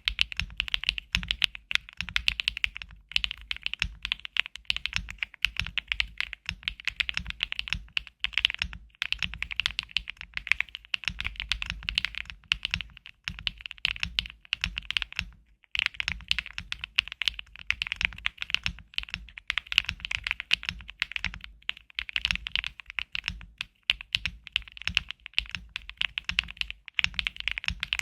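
Custom mechanical keyboard with HMX Cloud switches being typed on: a fast, continuous run of clacky keystrokes, broken by a few brief pauses.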